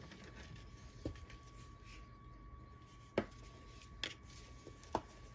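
A few light clicks and taps of a measuring spoon and containers as salt is measured out for cookie dough, spread out over a few seconds in an otherwise quiet kitchen.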